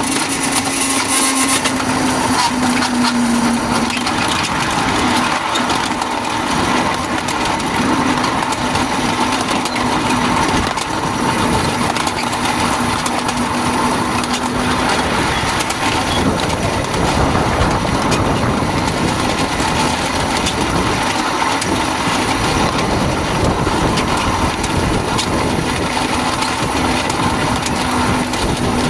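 Train rolling along the track: a steady rattling of wheels and running gear, with a steady hum that drops out about halfway through.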